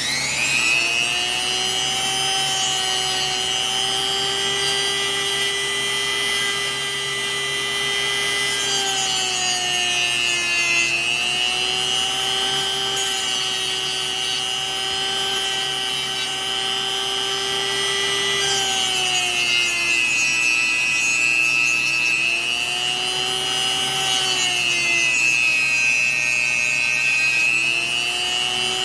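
Dremel-type high-speed rotary tool running steadily with a high whine that sags in pitch and recovers three times, deburring the cut end of a drill-rod spoke.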